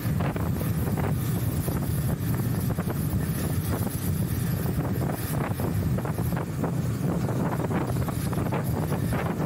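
Wind buffeting the action camera's microphone on a moving motorcycle, a steady rushing drone with the bike's engine running underneath.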